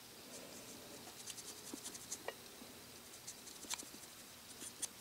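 Faint scratching and scattered light ticks of a soft-bristle brush dry brushing paint onto a plastic model's hull.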